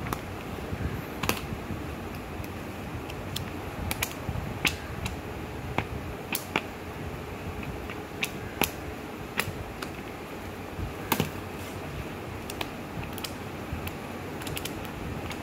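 Pages of a paper notes booklet being turned and handled by hand: irregular sharp paper clicks and rustles over a steady background hiss.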